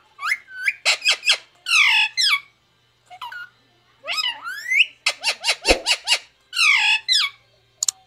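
Indian ringneck parakeet chattering in a string of high squeaky calls and upward-sweeping whistles, with a quick run of sharp clicks a little past halfway.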